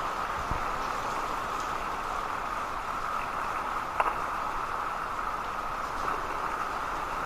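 Steady rain falling, an even patter of many drops. A single sharper click stands out about four seconds in.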